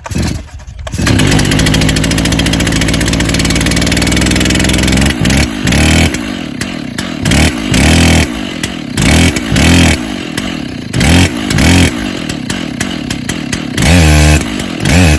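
Two-stroke chainsaw on an Alaskan chainsaw mill catching about a second in and running at high throttle, then revved up and let back down in short surges about once a second.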